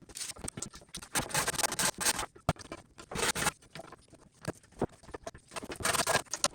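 Sandpaper rubbing on a thin wooden strip by hand in short, irregular strokes, with a few light knocks of wood on wood, as the strip is trimmed to fit a dado groove.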